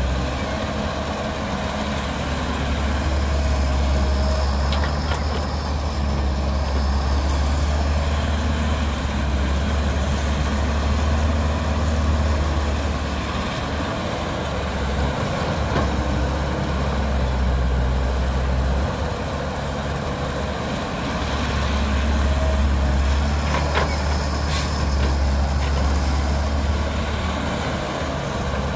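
Diesel engine of a Caterpillar tracked excavator running under load while it digs and loads soil into a dump truck. The low engine rumble swells and eases with each dig-and-swing cycle, and there are a few short knocks.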